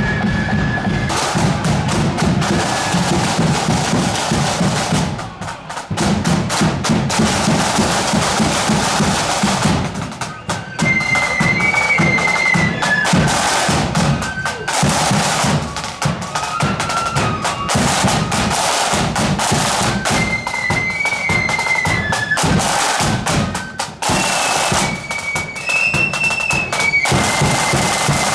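Marching flute band playing a tune: flutes carry a high melody over snare and bass drums beating a steady march rhythm, with a few short breaks between phrases.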